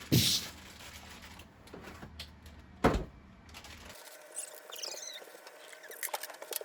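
Two sharp knocks about three seconds apart, then faint small clicks and rustles of objects being handled.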